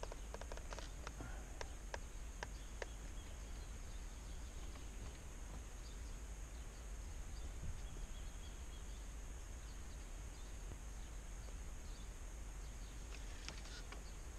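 Quiet outdoor ambience on still water: a steady low rumble and hiss with a faint, even high-pitched drone, and scattered light clicks and ticks in the first few seconds and again near the end.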